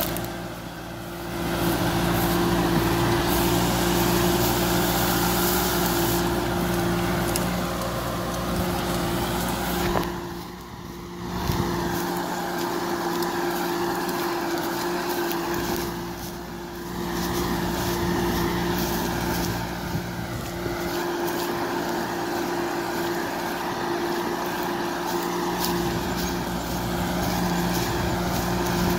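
Kubota M6040SU tractor's four-cylinder diesel engine running steadily at a constant pitch as the tractor drives through a muddy paddy field, the sound dropping briefly a few times.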